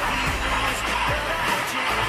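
Background pop music with a steady beat; no sung words come through.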